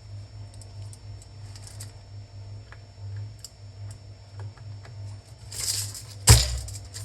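Small clicks and handling noises of tools on a workbench, with a short rustle and then one sharp loud clack, likely a tool set down, about six seconds in, over a steady low hum.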